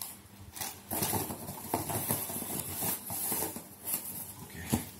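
Cardboard box and plastic packaging being handled, rustling and scraping irregularly, with a sharp click near the end.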